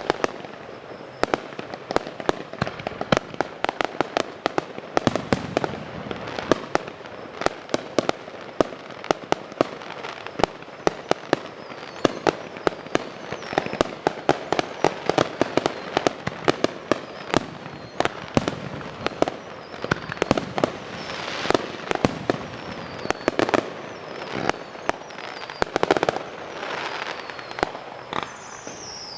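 Fireworks show going off in rapid succession: dense sharp cracks and bangs, several a second, over a continuous rumble, with a few whistles falling in pitch near the end.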